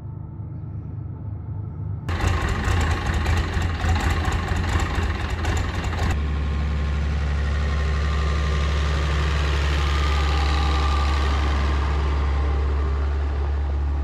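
Farm tractor engine running, rougher and louder for a few seconds, then a steady low drone as the tractor pulls a wagon past.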